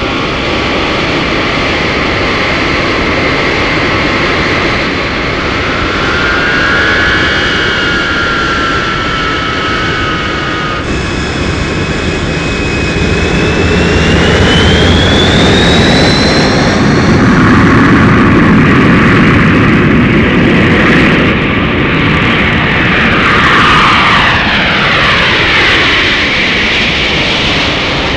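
Aircraft engine noise from a sound-effects record, layered with other looped effects tracks: a steady loud drone with whines gliding in pitch, one rising about halfway through and several falling near the end.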